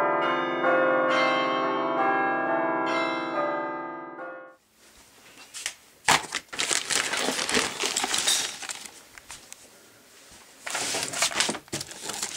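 Music of held, overlapping notes fades out about four and a half seconds in. Then come crackling, rustling handling noise and scattered clicks in irregular bursts as a hand-held camera and toys are moved about.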